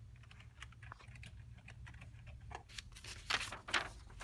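Faint, light clicking of a computer keyboard being typed on over a low hum, with two louder rustling scrapes about three and a half seconds in.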